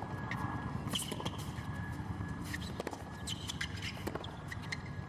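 Tennis rally on a hard court: rackets striking the ball and the ball bouncing, with shoes squeaking on the court, over a low wind rumble on the microphones.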